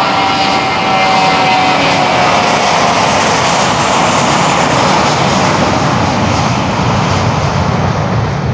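Jet airliner's engines running close by on the runway: a high whine that sinks slightly in pitch over the first couple of seconds under a loud, steady engine roar.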